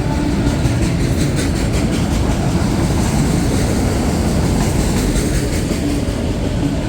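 Empty autorack cars of a freight train rolling past on the rails: a steady rumble of wheels and car bodies, with a few sharp wheel clacks about a second in and again near five seconds.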